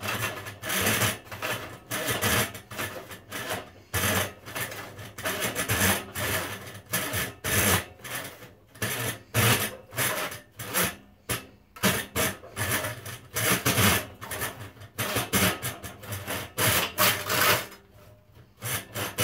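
Hand saw cutting through a thick plastic block with steady back-and-forth strokes, about three every two seconds; the plastic cuts much like wood.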